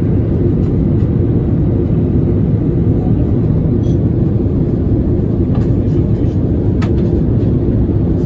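Steady, low in-cabin noise of an Airbus A340 airliner in flight, the engines and the rush of air blending into one even sound with no change in pitch.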